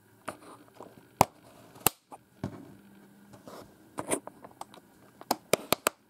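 Plastic fold-out tilt foot of a Cherry G83-6105 keyboard being worked by hand: sharp plastic clicks with a few short scraping rubs, and a quick run of four clicks near the end.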